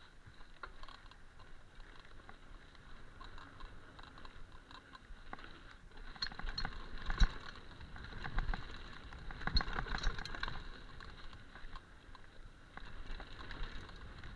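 Mountain bike rattling down a dirt trail: tyres on dirt with the chain and frame clattering, and sharper knocks over bumps about seven and again about nine and a half seconds in.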